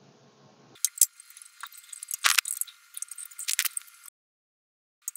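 Small metallic clicks and clinks of a screwdriver working screws into the Commodore 128D's metal power-supply housing and chassis: an irregular run of sharp ticks, the loudest about two seconds in, then a short pause near the end before more clicks.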